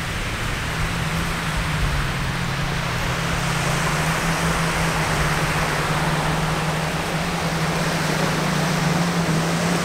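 Small waves washing onto a sandy shore, heard as an even rushing noise with wind on the microphone, under a steady low hum.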